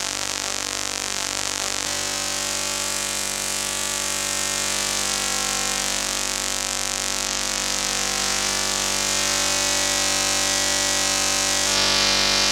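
Eurorack modular synthesizer drone from two oscillators shaped with a joystick: a dense, sustained buzzing chord whose overtones and hiss slowly shift, growing slightly louder and brightening near the end.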